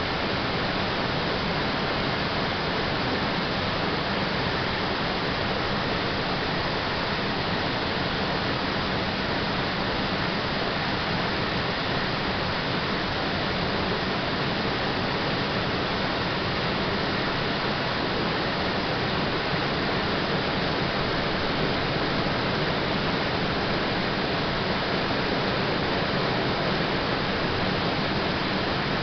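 Waterfall cascading: a steady, even rush of falling water.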